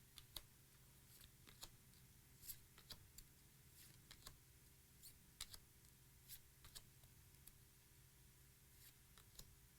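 Near silence, with faint, scattered clicks and rustles of paper trading cards being slid and flipped through a pack by hand.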